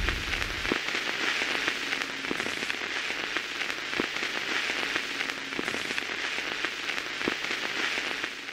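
A steady crackling hiss with scattered sharp clicks, like rain or static, fading out near the end.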